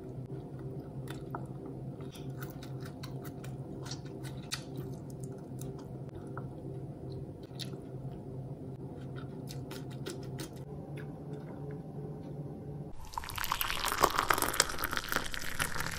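Close-miked mukbang eating sounds: wet mouth clicks and smacking from chewing, over a steady low hum. About 13 seconds in, much louder, dense crunching begins.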